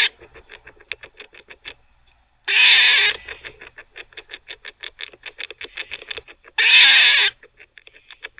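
Eastern gray squirrel gnawing on a chew with quick clicking bites, several a second, while teething. It breaks off twice for loud, drawn-out barks, the first about two and a half seconds in and the second near the end.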